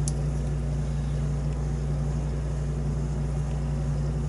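A steady low hum, with one faint click right at the start.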